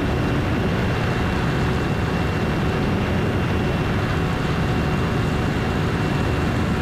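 Piper Aztec flying on its right engine alone, a carbureted six-cylinder Lycoming running steadily at about 2300 RPM and 23 inches of manifold pressure, while the left engine is shut down with its propeller feathered. Engine and propeller drone are mixed with rushing airflow on the externally mounted camera.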